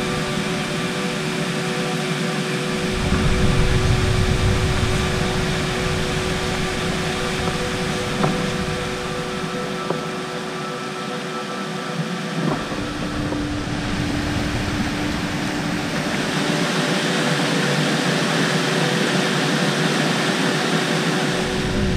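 Steady rushing of river water that grows brighter in the second half, with a few soft sustained drone tones held underneath.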